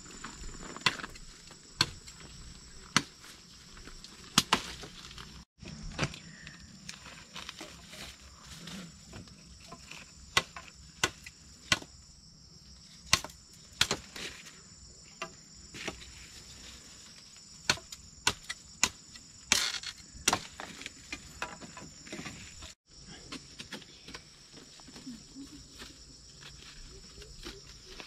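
Insects chirring in a steady high drone, with irregular sharp knocks scattered throughout, some in quick clusters.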